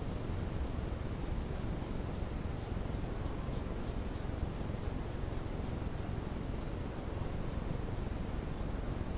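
Steady low hiss and rumble from a trail camera's microphone, with faint, short, high chirps repeating a few times a second.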